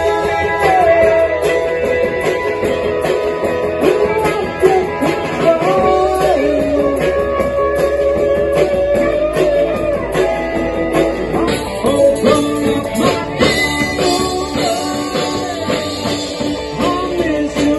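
Live rock band playing, with electric guitar carrying long, bending notes over a drum kit.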